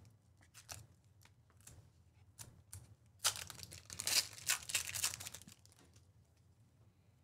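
Trading card pack's foil wrapper being torn open and crinkled, with the loudest burst of tearing and crackling from about three to five and a half seconds in, and lighter scattered rustles before and after.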